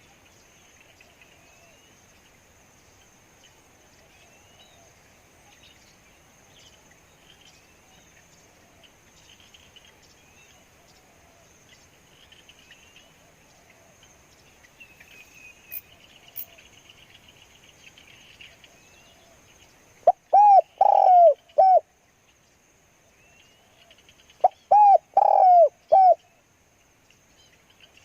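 Spotted dove cooing twice, each call a short phrase of about four low coos, the second a few seconds after the first. Faint insects hum steadily underneath, with scattered small chirps.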